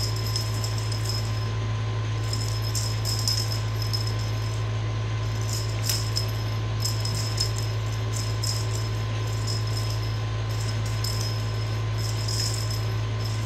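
Cat teaser wand toy jingling and rattling in irregular bursts as it is jiggled and swatted, over a steady low hum.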